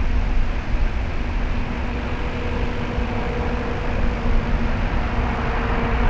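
2TE116 diesel locomotive's 5D49 V16 turbocharged diesel engines working hard hauling a freight train up a grade: a steady low rumble with a steady turbocharger whistle over it.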